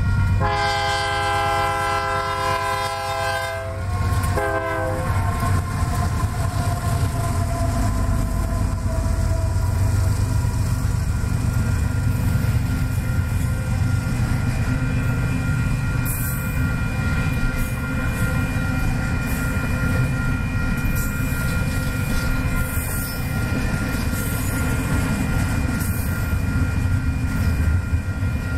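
Diesel freight train's horn sounding one long blast and a short one as the locomotives reach the crossing, then the locomotives and a long string of double-stack container cars rolling past, a steady heavy rumble with wheel clatter on the rails.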